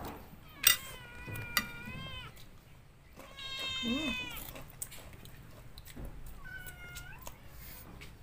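A domestic cat meows three times: two long meows of about a second or more each, then a shorter, fainter one. There are two sharp clicks near the start.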